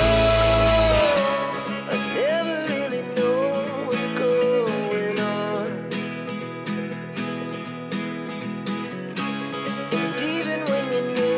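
Background music led by guitar, with a wandering melody line; a loud bass part drops out about a second in.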